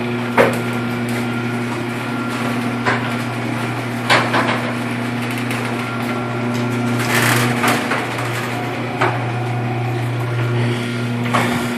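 Electric garage door opener motor running steadily as the door opens, a constant hum with occasional knocks and rattles from the door and rail.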